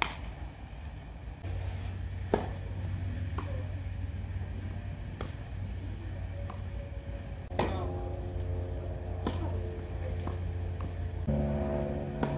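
Tennis ball struck by rackets in a rally on a grass court: about half a dozen sharp pops, roughly two to three seconds apart, over a steady low hum.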